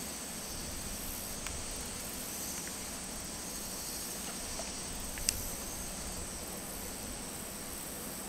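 Steady high-pitched drone of insects, with a few faint clicks and one sharper tick about five seconds in.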